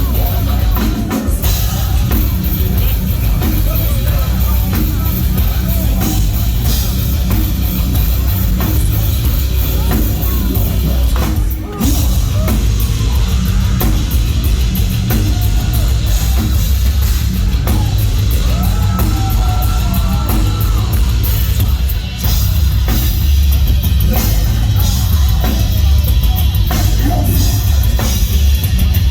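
A heavy metal band playing live at high volume, with pounding drums, heavy bass and distorted guitars. The sound dips for a moment twice, before the full band comes back.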